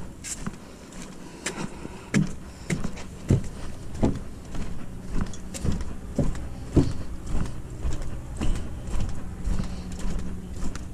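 Footsteps on the planks of a wooden boardwalk: a steady walking rhythm of short knocks, about two steps a second, starting about two seconds in.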